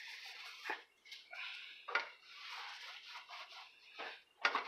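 Wiping and scrubbing across an electric coil stovetop in uneven strokes, with a few light knocks.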